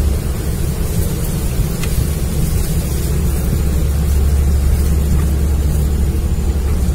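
Wind buffeting the microphone: a loud, steady low rumble with a hiss over it.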